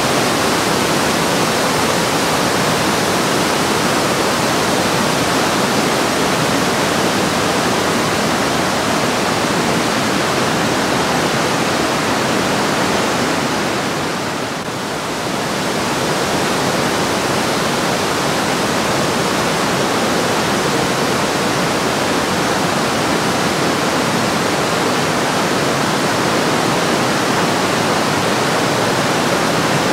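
Loud, steady rushing of the Breitach river's white water tumbling over boulders in a narrow rock gorge. The level dips briefly about halfway through.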